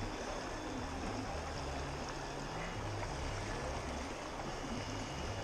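Steady rush of river water flowing past a wading angler in shallow, rippling current.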